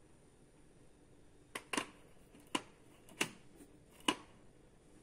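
Five light clicks and knocks, the loudest in the middle, as a lit LED light bar is handled and set down flat.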